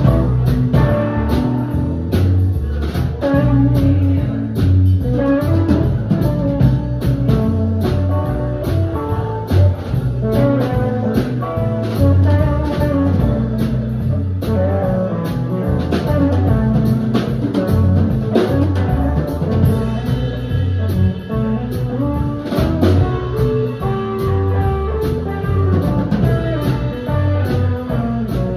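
Live band playing an instrumental passage: electric guitar lines over bass guitar and drum kit.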